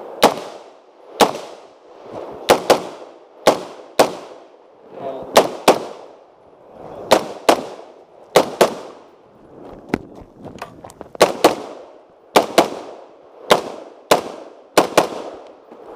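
AR-15 rifle firing about twenty shots, many as quick pairs a fraction of a second apart, each crack followed by a short echo. There is a brief pause in the firing about ten seconds in.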